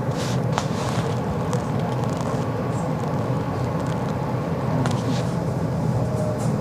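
Tram running, heard from inside the car: a steady low rumble of motors and wheels on the rails, with a few faint clicks.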